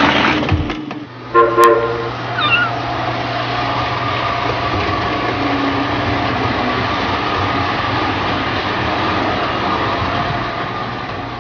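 Toy electric trains running on a layout: a steady rolling rumble with a low motor hum. About a second and a half in comes a brief multi-tone whistle blast.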